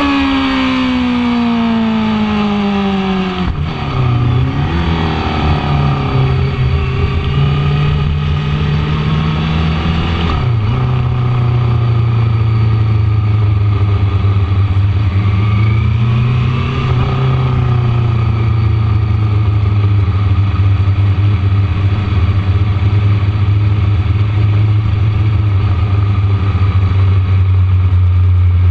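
2006 Yamaha R6's inline-four engine heard from on board. The revs fall steadily over the first few seconds, with brief dips and rises at gear changes about 3.5 and 10.5 seconds in. After that it runs at low, steady revs as the bike rolls slowly, with a small rise in pitch about halfway through.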